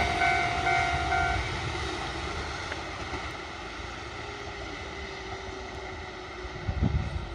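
A Kotoden train running away from a level crossing, its running noise fading steadily. The crossing warning bell rings in steady tones over it and stops about a second and a half in.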